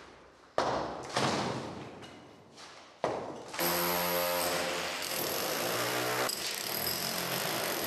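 Two sledgehammer blows on a brick wall, then about three seconds in an electric power tool starts up and runs steadily with an even pitch.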